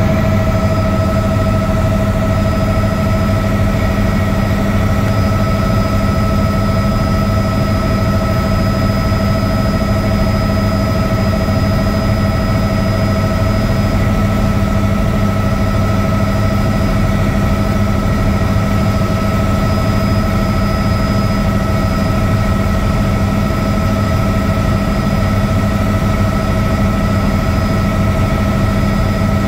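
Helicopter in flight, heard from inside the cabin: a loud, steady engine and rotor drone with several constant whining tones over it.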